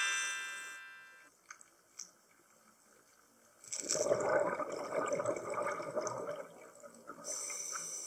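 Scuba diver breathing through a regulator underwater: a hiss of inhaling, then a few seconds of exhaled bubbles, and another inhale hiss near the end. A chime sound effect dies away at the start.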